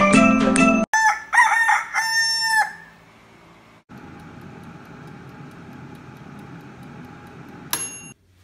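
A jingle ends, then a rooster crows once. A steady whir follows, from an Otto air fryer running, with a single bell ding near the end as its timer runs out.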